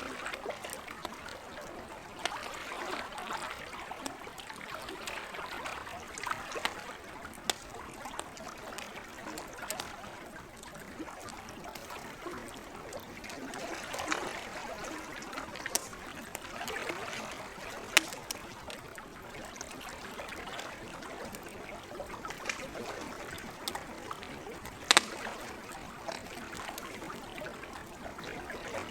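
Campfire crackling over the gentle lapping of lake water, with scattered sharp pops from the burning wood; two louder pops stand out in the second half.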